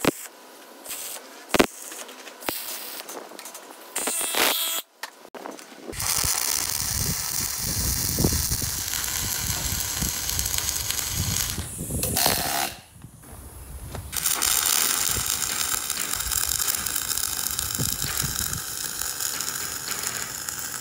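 MIG wire-feed welding arc on steel, welding a new trunnion ball mount into place. A few scattered clicks at first, then steady, dense crackling from about six seconds in, broken by a pause of a second or so in the middle before the bead carries on.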